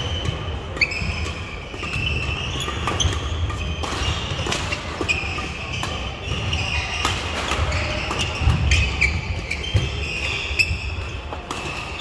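Badminton rally in a sports hall: many short, high shoe squeaks on the court floor, sharp racket-on-shuttlecock hits, and the low thuds of footwork.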